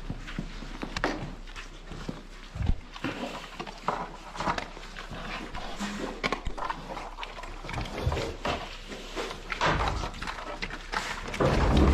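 Farm animals moving and making short noises, with irregular knocks and scuffs throughout and a heavier low thump near the end, over a steady low hum.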